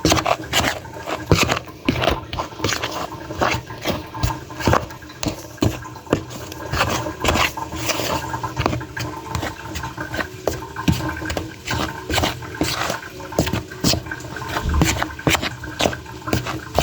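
Spoon or mixing utensil scraping and knocking against a bowl in quick, irregular strokes while stirring flour, grated carrot and ginger together.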